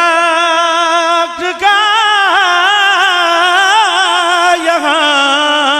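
Male reciter singing a long, drawn-out line of an Urdu manqabat, holding notes with wavering ornaments; there is a short break about a second and a half in, and the pitch falls at the end.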